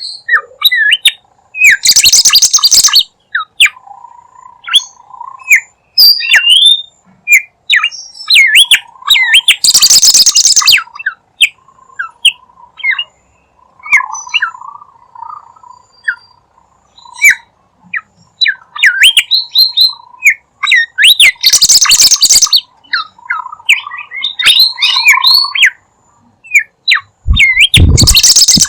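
Bimoli bird singing vigorously as a lure call: a busy run of short chirps and quick up-and-down whistles. Four loud, buzzy, rattling bursts break through it, several seconds apart.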